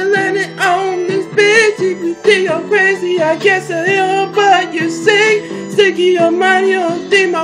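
A young man singing an R&B-style song in short phrases, his voice wavering with a heavy vibrato. Under the voice, a backing track holds steady low notes.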